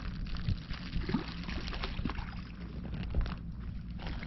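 Water lapping at the shore, with a steady low rumble and scattered faint clicks.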